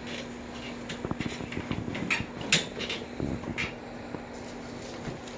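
A person shifting position on a padded chiropractic treatment table: rustling with a string of small knocks and clicks, the sharpest about two and a half seconds in.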